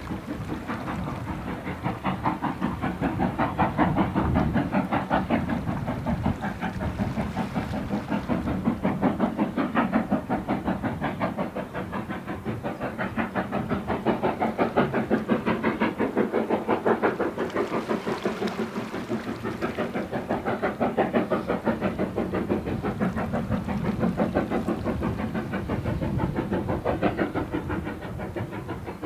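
BR Standard Class 4MT two-cylinder steam locomotive working under power, its exhaust beats coming in a rapid, even rhythm that swells and fades in loudness every few seconds.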